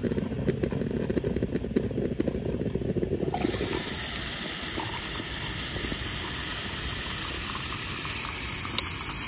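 Stovetop moka pot on a gas camp stove gurgling and sputtering as the coffee comes up. About three seconds in it gives way to a steady hiss of steam while hot coffee is poured into a stainless steel mug.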